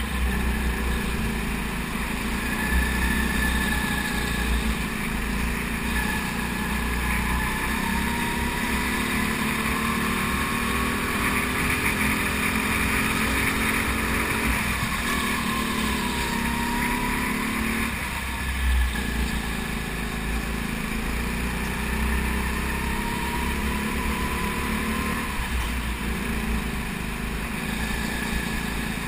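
Onboard go-kart engine at racing speed, its pitch rising along the straights and dropping several times as the kart slows for corners.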